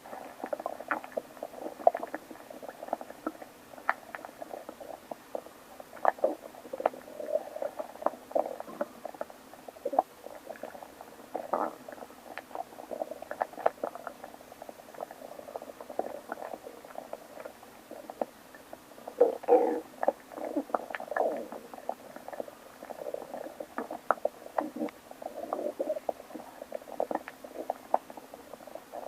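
A person's stomach growling and gurgling in irregular bursts of rumbles and short squeaks, with a louder stretch about twenty seconds in.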